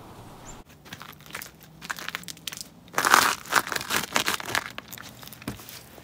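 Irregular crinkling and crackling handling noise, a run of small sharp clicks that is busiest a little past the middle.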